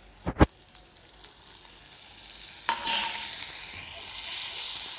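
Ground coconut paste and rinse water poured into hot tempering oil in a clay pot, sizzling. The sizzle builds and then swells sharply a little past halfway as the water hits the oil. A single sharp thump comes just after the start.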